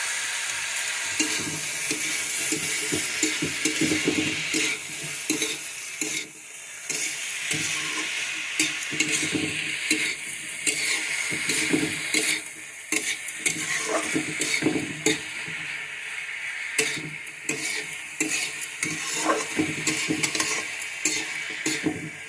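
Spatula stirring and scraping sauced vegetables in a hot pan, with frequent clicks against the metal over a steady sizzle of frying.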